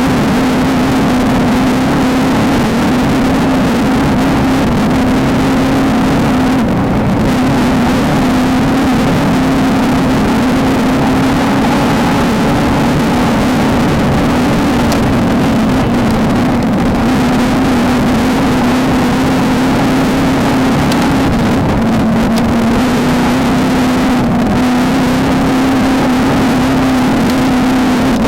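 Off-road desert race vehicle's engine running hard at fairly steady high revs, its pitch dipping slightly now and then, over heavy rattle and course noise.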